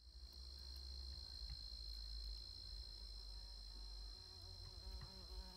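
A steady, high-pitched insect chorus with a low rumble underneath; from about four seconds in, a flying insect buzzes close by, its pitch wavering.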